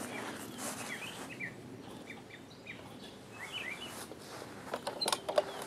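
Small birds chirping, with short rising chirps scattered through, over faint outdoor background noise. Near the end there are a few sharp clicks, louder than the birds.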